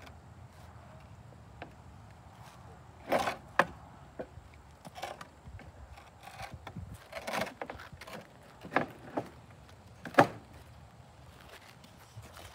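Scattered sharp knocks and clatters of wooden ramp boards being pushed and shifted against a toy trailer and its wooden support blocks, about six in all, the loudest about ten seconds in.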